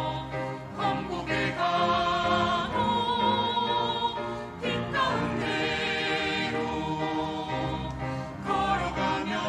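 Mixed church choir singing a hymn in Korean with keyboard accompaniment, in long held phrases with vibrato and short breaths between them.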